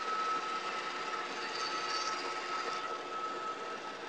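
1K62 screw-cutting lathe running with the chuck turning, a steady mechanical hum with a thin high whine, while a die held up by the tailstock cuts an external thread on the part. The whine fades about three and a half seconds in.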